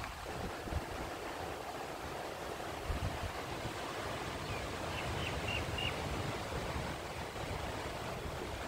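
Steady rush of sea surf, with wind now and then buffeting the microphone. About five seconds in come four short high chirps.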